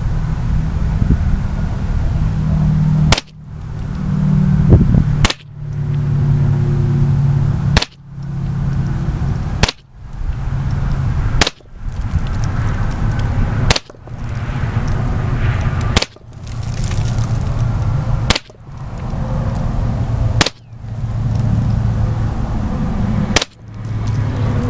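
Ten single shots from a .22 Long Rifle rifle, each a sharp crack, spaced about two to three seconds apart over a steady low rumble.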